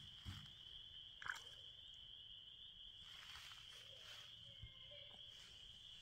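Faint, steady high-pitched chorus of spring frogs calling, with a few soft splashes and knocks as a cat wades in shallow water.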